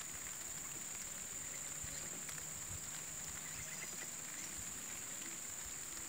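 Outdoor ambience: a steady high-pitched drone with faint scattered ticks and small knocks.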